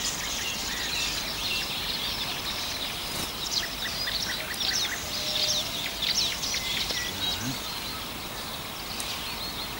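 Several songbirds chirping and trilling over a steady outdoor hiss.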